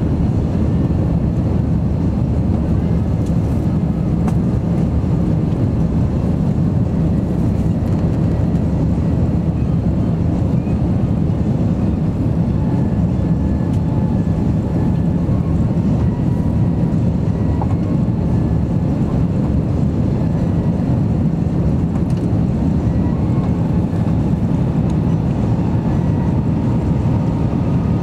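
Steady cabin noise inside an Airbus A330-200 in flight: the low, even drone of its jet engines and the rush of air past the fuselage, heard from a window seat over the wing.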